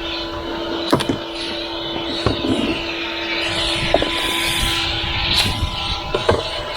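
Vacuum cleaner running with a steady motor hum. A few sharp knocks come as the nozzle hits hard surfaces and debris rattles up the hose, and the hiss of suction rises for a moment in the middle.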